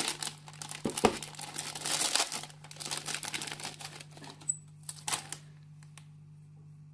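Thin plastic packaging bag crinkling and rustling as a runner of red plastic model-kit parts is pulled out of it, with quick light clicks and taps of plastic. It dies away about five seconds in.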